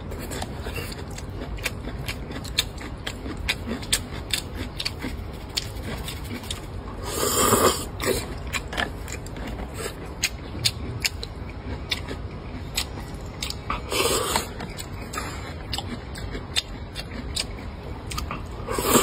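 Close-up eating sounds of a man chewing hotpot food: many small wet mouth clicks and smacks throughout. Two longer, louder mouth noises stand out, about seven and fourteen seconds in.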